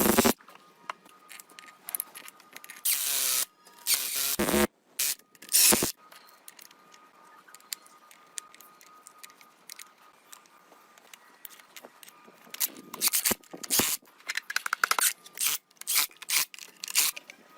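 Hand work in a workshop: short scraping strokes and sharp clicks come in irregular bunches, with a longer stroke about three seconds in and a busier run of strokes near the end.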